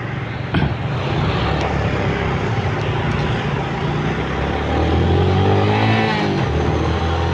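A motorcycle riding along a city road: its engine running steadily under heavy wind rush on the microphone, with traffic around. About five seconds in, an engine note rises and then falls.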